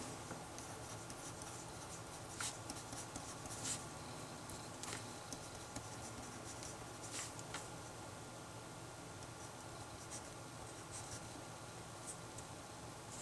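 Writing on paper: a pen scratching out short, irregular strokes over a faint steady room hum.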